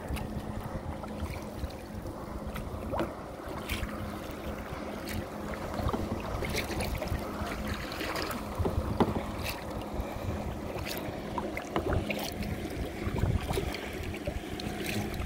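Kayak paddle blades dipping and splashing in calm seawater, with irregular sharp splashes and drips as the strokes go in and out, over wind buffeting the microphone. A faint steady hum runs underneath.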